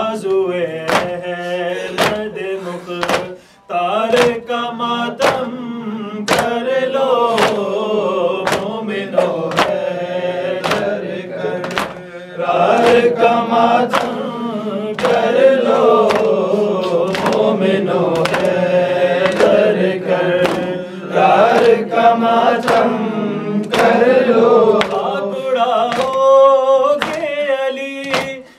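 Men chanting a mourning lament (noha) together, with a steady beat of open-hand chest strikes (matam) about twice a second keeping time.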